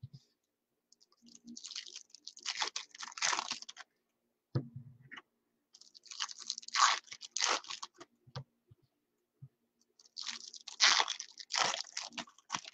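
Foil wrapper of a Topps Chrome baseball card pack crinkling and tearing in three bursts, with a soft knock between the first two.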